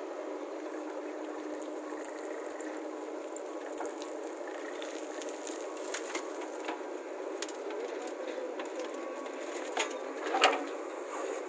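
Steady running noise of a JCB 3DX backhoe loader's engine, with crackling and small knocks of soil and clods pouring from its bucket. A louder knock comes about ten seconds in.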